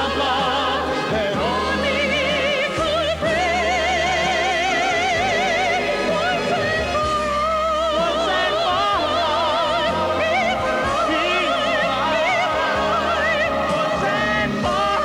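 Operatic-style singing of long held notes with wide vibrato over orchestral accompaniment with a steady low bass.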